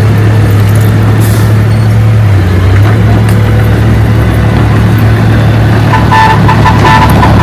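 Heavy diesel engine of earth-moving machinery running steadily with a deep drone. About six seconds in, a few short high beeps sound over it.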